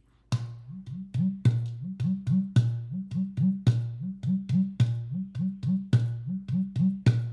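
Clay udu drum played with the hands in a steady rhythm: a strong stroke about once a second with lighter strokes between, and low hollow tones that bend upward in pitch.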